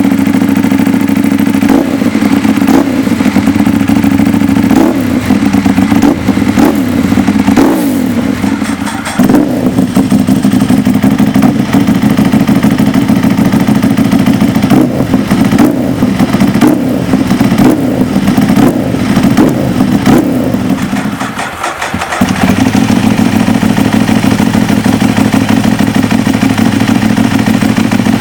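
Ducati 1098 superbike's L-twin engine idling loud and lumpy through an aftermarket exhaust, blipped repeatedly to quick revs that rise and fall in pitch. The note dips briefly about nine seconds in and again near twenty-two seconds, then settles back to a steady idle.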